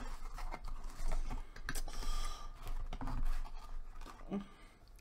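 Fast-food sandwich packaging being handled and opened: an irregular run of crinkles, scratches and sharp clicks, with a longer rustle about two seconds in.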